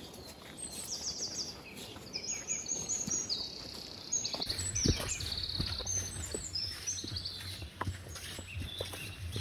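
Forest birds singing: several rapid, high-pitched trills and chirps, one after another. Scattered soft footsteps on a dirt trail come in from about halfway.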